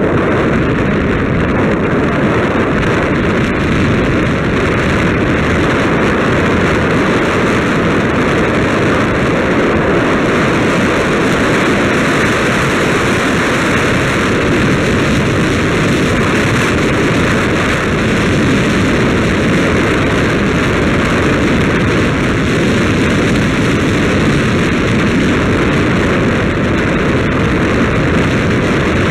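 Steady, loud wind rush buffeting the microphone of a camera moving along a road, an even roar with no engine note or distinct events in it.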